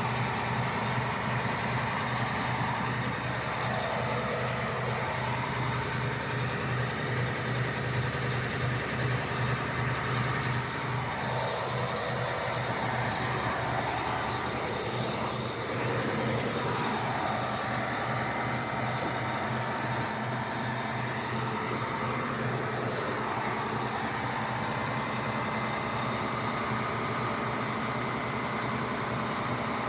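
Drilling rig's engine running steadily with a low pulsing hum, with a few slow rises and falls in pitch in the middle.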